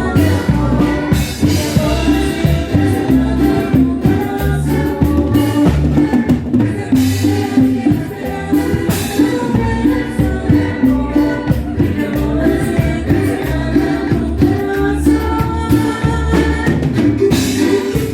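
Cumbia band playing live: a steady dance beat of bass and drums under a held melody line.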